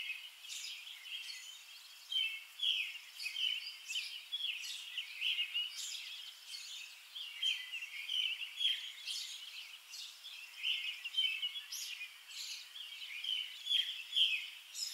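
A flock of small birds chirping, a dense continuous chatter of short high calls overlapping many times a second.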